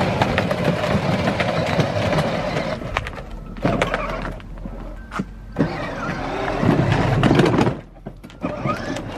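Battery-powered ride-on toy Mercedes ML63 AMG driving: its electric motors whine and its plastic wheels roll over concrete and dry leaves, with several short pauses and a rise again near the end.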